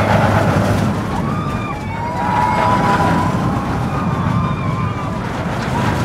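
Road traffic: a steady rumble of vehicles with drawn-out, slightly wavering tones over it, several at once a little past the middle.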